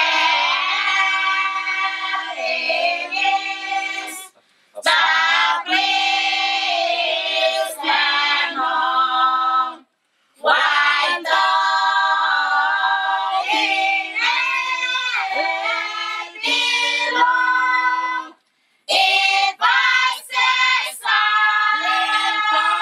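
A group of children and young women singing a Christmas carol together, unaccompanied, breaking off briefly three times between phrases.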